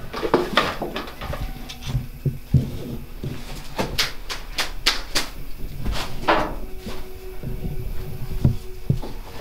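Footsteps and scattered wooden knocks and clunks in a small room of an old house, with a quick run of five or six sharp clicks about four seconds in.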